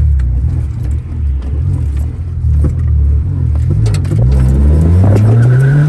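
Car engine rumbling low, then revving up steadily from about four seconds in as the driver tries to spin the tires. A brief high tire squeal starts near the end.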